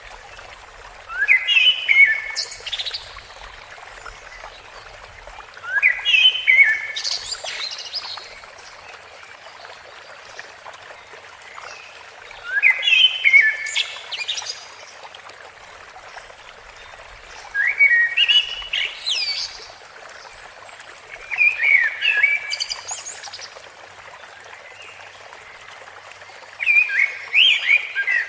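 A songbird repeating the same short song phrase six times, about every five seconds, each a quick run of rising and falling notes lasting about two seconds. Behind it, a steady hiss of flowing water.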